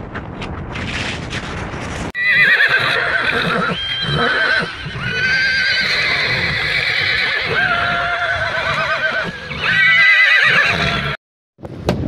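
Wind buffeting the microphone, then from about two seconds in several horses whinnying over and over, their wavering calls overlapping at different pitches. The calls stop abruptly near the end.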